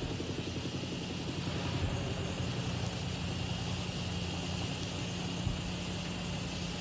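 A steady, low mechanical drone of an engine, with a constant hum underneath and a faint high steady tone above.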